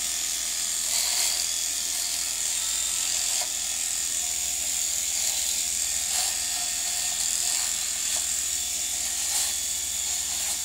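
Rotary three-head electric shaver running with a steady buzz while it is pressed and moved through beard stubble on a man's chin.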